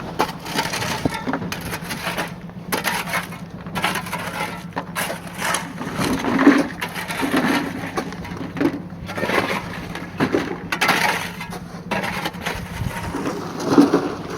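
Construction-site work noise: irregular knocking, clinking and scraping, over a steady low hum.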